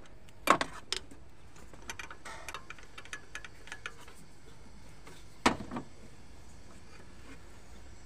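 Metal hand tools clinking in a car's engine bay as a ratchet and socket are handled: a sharp clank about half a second in, a scatter of light ticks, then another clank about five and a half seconds in.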